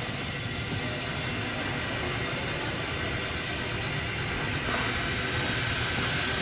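Steady noise of an indoor ice rink, a low rumble and hiss, with figure skates gliding on the ice, growing slightly louder about two-thirds of the way through.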